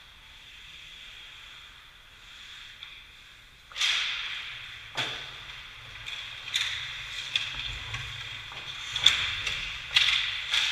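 Ice hockey play: skate blades scraping the ice, with sticks and puck striking. It is quiet for the first few seconds, then comes a run of sharp cracks, each trailing off in a short hiss, the loudest near the end.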